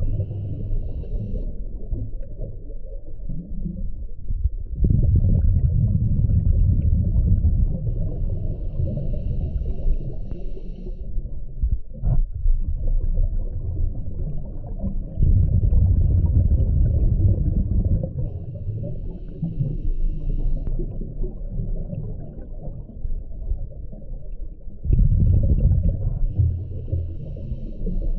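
Scuba diver breathing through a regulator, heard underwater: a low bubbling rumble of exhaled bubbles every ten seconds or so, each lasting a few seconds, with a fainter hiss in between.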